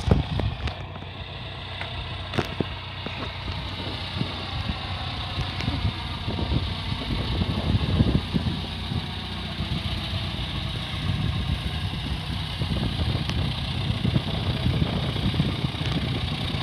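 Single-engine high-wing light aircraft taxiing, its propeller engine running at low power and slowly growing louder as it comes closer, with gusty low rumble on the microphone.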